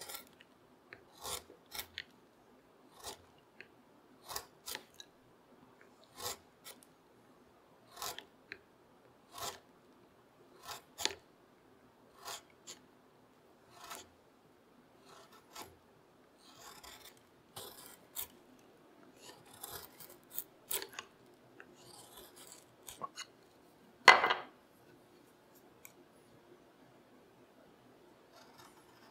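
Hand-pushed curved carving gouge slicing shavings from a beech board: a short scraping cut about once a second, one cut markedly louder about 24 seconds in.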